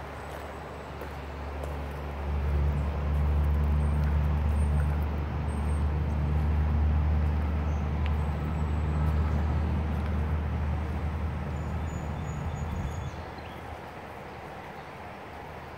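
Low, steady drone of a motor vehicle's engine passing nearby, swelling about two seconds in and fading away near the end.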